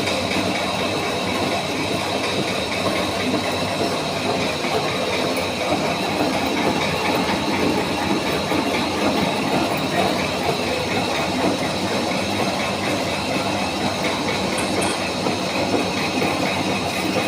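Sempolan forming machine running, a steady mechanical clatter with a fast, even rattle.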